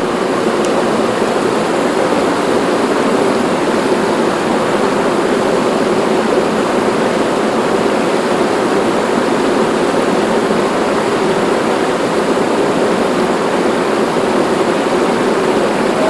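Rain-swollen river water pouring over a low concrete dam: a steady, loud rush of water with no breaks.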